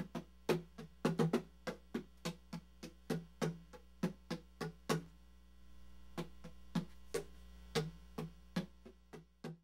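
A run of sharp, irregular taps or knocks, about four a second at first, then sparser after a short pause about five seconds in, over a steady electrical mains hum.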